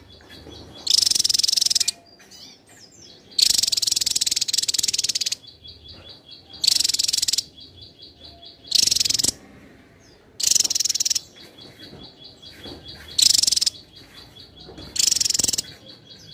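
Javan tesia singing seven loud bursts of very high, rapid song, each lasting under a second to about two seconds. A fainter high ticking runs steadily at about seven ticks a second between them.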